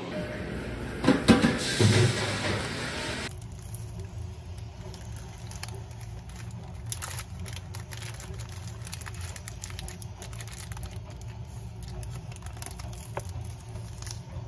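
Paper sandwich wrapper crinkling and rustling in the hands, a run of faint crisp crackles over a low steady hum. Before that, louder handling noise with a few sharp peaks, which cuts off abruptly about three seconds in.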